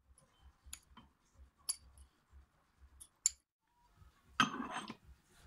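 A few sharp clicks and taps as shredded shisha tobacco is tipped off a paper disc into an aluminium hookah bowl. A little over four seconds in comes a short metallic clatter, the loudest sound, as the metal charcoal bowl is handled and set on top.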